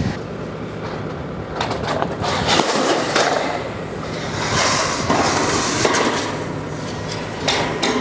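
Long corrugated steel roof panel being slid across steel purlins: a continuing metallic scrape, with several sharp knocks and clanks of the sheet against the framing.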